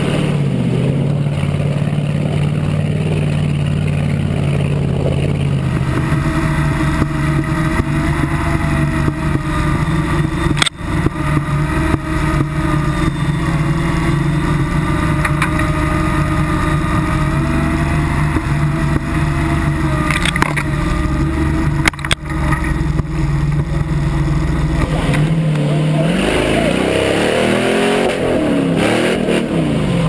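Engine of a tube-frame off-road buggy running hard under load, heard from inside the open cockpit, a steady drone that twice dips for an instant. Near the end the engine revs up and down repeatedly.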